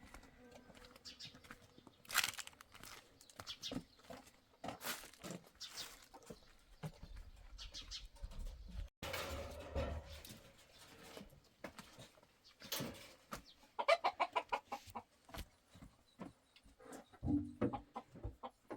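Chickens clucking in a farmyard, mixed with scattered knocks and clatter. About two-thirds of the way in comes a fast run of clucks.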